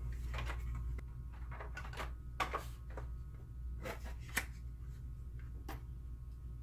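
BenQ HT1075 projector's plastic top cover being handled and fitted over the open chassis: scattered light plastic clicks and knocks, over a steady low hum.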